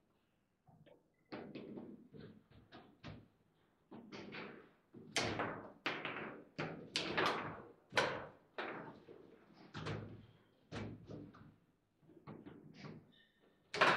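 Table football (foosball) in fast play: a string of sharp, irregular knocks and slams as the ball is struck by the rod-mounted figures and bangs off the table, with the loudest hit right at the end.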